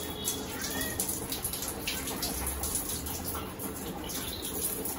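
Water jetting from a pistol-grip hose spray nozzle and splashing onto the tiles, a steady rushing spray with small splashes, in a small tiled room.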